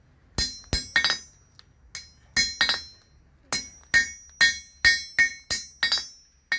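Blacksmith's hand hammer striking a small steel piece held in tongs on an anvil: about a dozen blows in irregular groups of two or three, each a sharp metallic clang with a brief bright ring.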